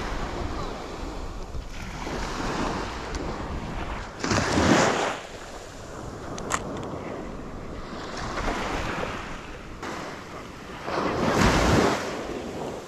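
Sea surf washing onto a beach, with wind on the microphone. The sound swells to two louder rushes, about four seconds in and again near the end.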